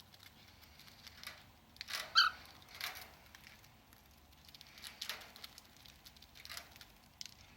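Cockatiel nibbling and crunching a biscuit: scattered short, dry crackles and pecks, with one brief high chirp about two seconds in.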